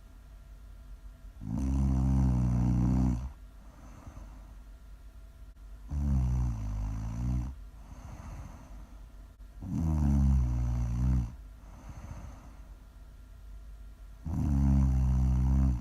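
A person snoring really loud: four long, low, rasping snores about four seconds apart, with faint breathing between them. The last snore is still going at the end.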